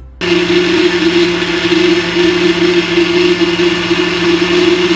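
Countertop blender motor running loud and steady at one constant pitch, pureeing boiled mushrooms in milk into a smooth liquid. It switches on abruptly just after the start.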